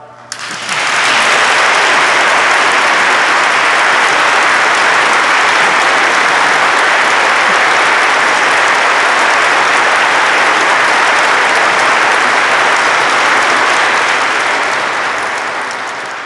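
Audience applauding, steady and dense, starting about half a second in and fading out near the end.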